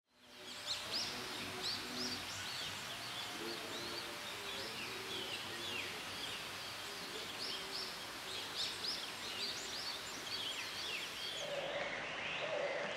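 Several birds singing at once, many short chirps and whistles overlapping continuously over a steady background hiss, with some lower-pitched calls underneath in the first few seconds.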